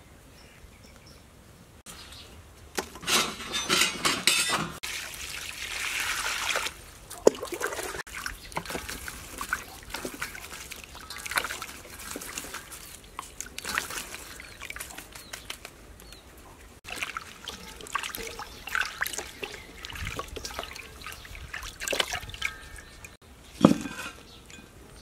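Water splashing and trickling in a stainless steel bowl as lemongrass, chilies and leaves are washed by hand, in irregular bursts. A single sharp knock near the end.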